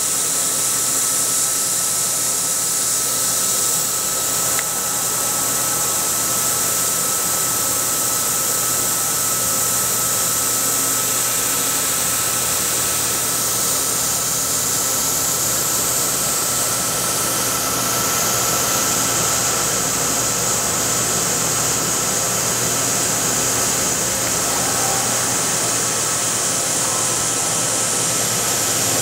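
Steady hiss of a compressed-air spray gun blowing dense water mist, together with the running fan of a PWR oil mist collector, and a thin steady tone above them.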